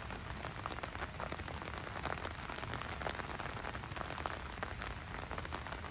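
Steady rain falling, a dense patter of many small drop impacts.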